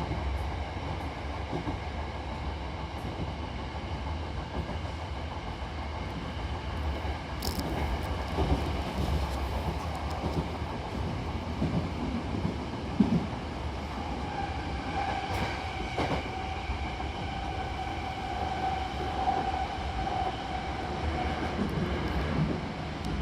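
Hankyu Imazu Line electric commuter train running between stations, heard from inside the car: a steady rumble of wheels on the rails with a few sharp clicks. Partway through, a steady high whine comes in and holds for several seconds before stopping.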